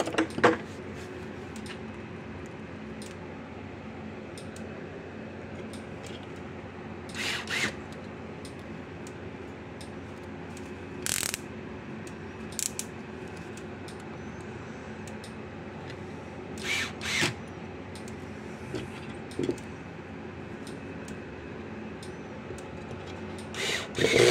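Hand screwdriver driving screws into a fence energizer's plastic case: short bursts of mechanical clicking every few seconds over a steady background hum.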